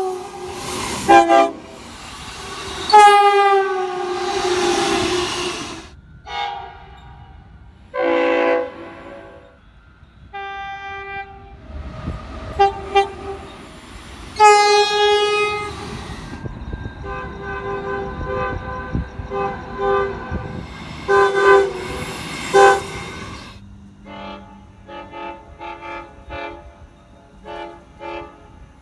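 Locomotive horns sounding one after another, several different horns in turn: some long blasts, some short. One horn a few seconds in drops in pitch, and near the end comes a string of short, quick toots, all over the low rumble of the passing trains.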